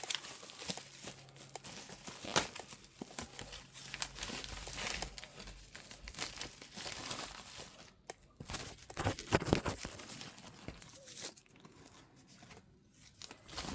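Plastic packaging crinkling and rustling as accessories are unwrapped, with scattered small clicks and louder rustling about nine seconds in.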